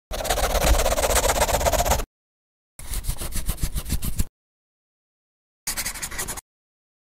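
A rapid rattling, scratchy sound effect in three short stretches, about two seconds, then a second and a half, then under a second, each cut off abruptly into dead silence.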